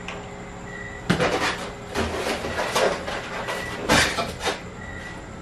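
Parts of a portable mini table saw being handled and fitted into the saw's body: a series of separate knocks and clicks of metal and plastic pieces.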